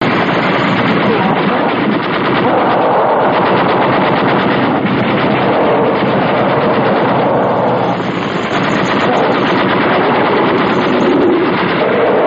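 Sustained rapid machine-gun fire, a dense unbroken rattle of shots that cuts off suddenly near the end.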